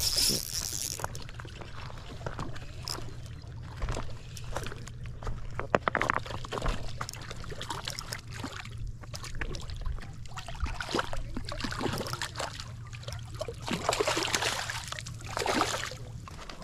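Water sloshing and trickling in irregular bursts, over a steady low hum.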